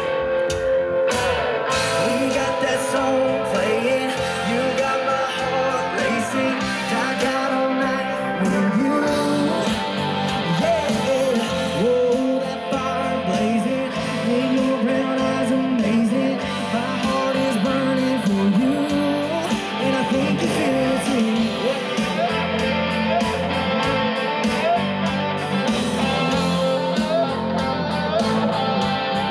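A live rock band playing a song through its PA: electric guitars, bass and drums, with a bending lead melody over them.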